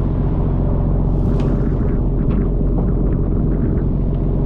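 Fishing boat's engine running with a steady low drone, under the hiss and wash of spray and sea along the hull, with a few faint knocks.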